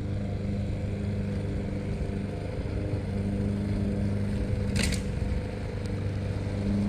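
Bow-mounted electric trolling motor on a bass boat running steadily with an even low hum. A brief rustle comes about five seconds in.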